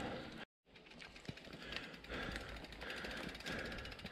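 Mountain bike rolling down a dirt trail: rapid, even ticking of the rear hub's freewheel as it coasts, over the noise of the tyres on the dirt, after a brief dropout about half a second in.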